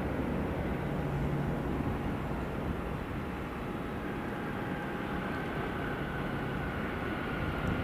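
Jet aircraft engines running: a steady rumble with a faint high whine that slowly falls in pitch through the second half.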